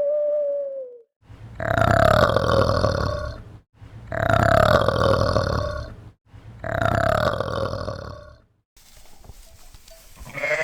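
An animal calling three times, each call long and loud, lasting about two and a half seconds, with a short pitched call falling in pitch just before them.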